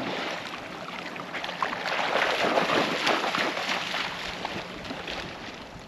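Shallow seawater splashing and lapping as a steady wash of small splashes, a little louder about two seconds in and fading toward the end.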